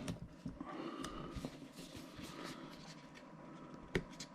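Faint handling of product packaging: light rustling and small clicks, with one sharper click about four seconds in.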